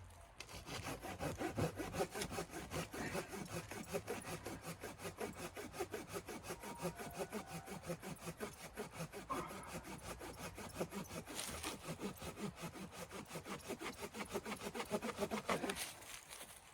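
Hand saw cutting through wood with rapid, even back-and-forth strokes, stopping shortly before the end.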